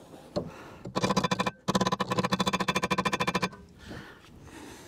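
Rapid metallic clicking from a hand tool on the rear caliper carrier bracket bolt, about ten clicks a second in two runs with a short break, each click ringing like steel.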